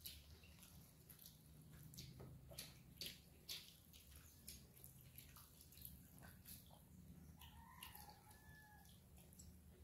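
Faint eating sounds: small wet clicks and ticks of fingers working soaked rice (pakhala) in steel bowls, and chewing. A faint chicken call about eight seconds in.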